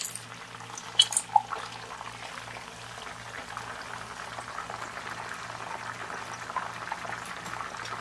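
Whole chicken frying in hot oil in a pan, a steady bubbling sizzle. A few sharp clicks of metal tongs and spatula against the pan about a second in as the chicken is turned.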